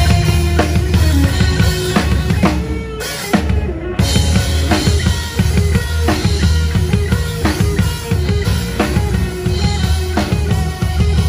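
Live rock band playing: a drum kit with cymbals, snare and bass drum drives the beat under amplified electric guitar. The music starts abruptly, drops to a brief lull about three seconds in, and the full band comes back in a second later.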